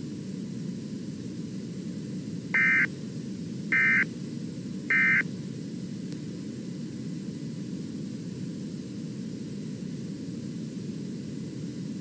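Three short bursts of Emergency Alert System end-of-message data tones (the SAME 'NNNN' code), each a fraction of a second long and about a second apart, closing the alert. A steady low background noise runs underneath.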